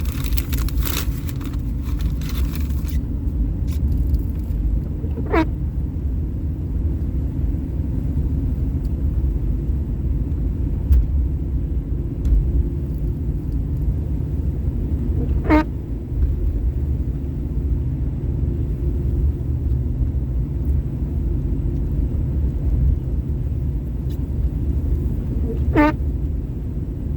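Steady low road and engine rumble inside a moving car's cabin. A short falling squeak sounds three times, about ten seconds apart, and there is a brief crackle near the start.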